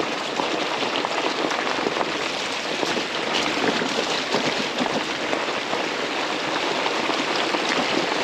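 Four-inch fat tyres of an electric bike rolling downhill over wet gravel and dirt: a steady crackling hiss of grit and small stones under the tyres.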